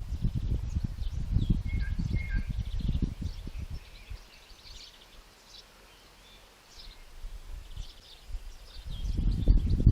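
Several birds chirping and calling, with two short whistled notes about two seconds in. Gusts of wind buffet the microphone, easing off midway and picking up again near the end.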